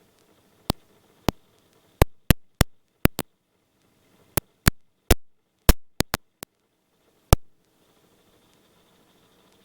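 A run of about fourteen sharp, irregular clicks over a very faint steady background hum. The clicks stop after about seven and a half seconds.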